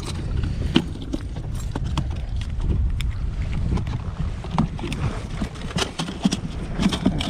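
Wind rumbling on the microphone, with irregular knocks and taps as a just-landed striped bass is handled and thrashes against the boat.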